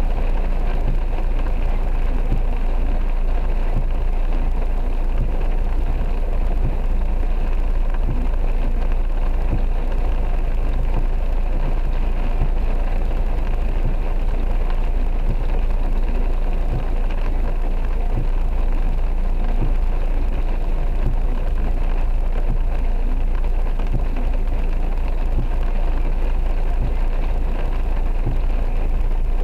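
Heavy rain drumming steadily on a car's roof and windscreen, heard from inside the cabin, over a steady low rumble from the car.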